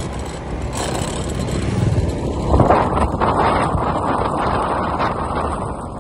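Motor scooter riding along a road: the engine running steadily under wind rushing on the microphone, getting louder a little past halfway through.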